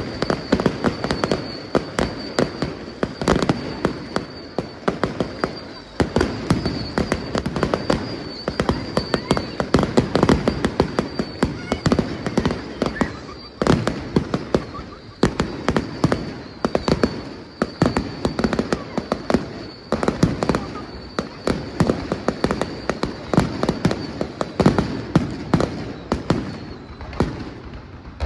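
Fireworks display going off in a rapid, continuous barrage of bangs and crackles, many per second. A thin, steady high whistle runs under it and fades out near the end.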